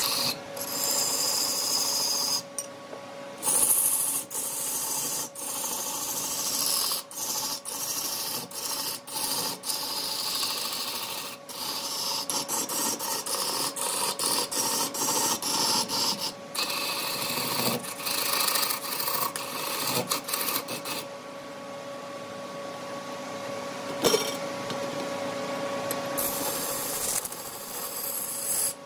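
Wood turning on a lathe: a tool scraping and shaving the spinning wood in a steady hiss, broken by many short sudden gaps, over a steady hum.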